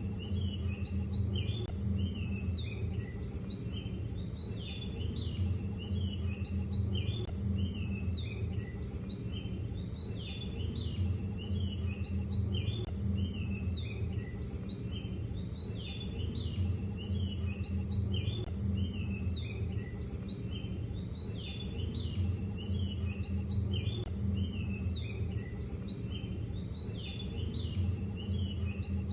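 Many small birds chirping continuously in overlapping short calls, over a steady low hum.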